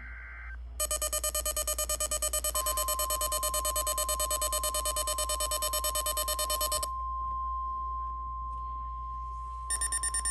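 Weather radio alert alarm: rapid, shrill beeping at about eight beeps a second, joined about two and a half seconds in by a steady single warning tone. The beeping stops about seven seconds in and starts again near the end while the steady tone holds, announcing a severe thunderstorm watch.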